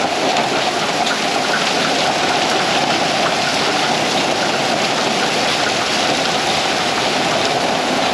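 Heavy thunderstorm rain mixed with small pea- to marble-size hail falling on a roof. It is a steady, dense hiss with scattered faint ticks of hailstones.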